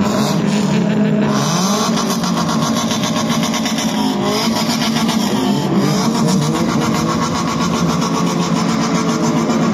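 Car engine running at a steady pitch with a fast, even pulse, the revs rising briefly a few times.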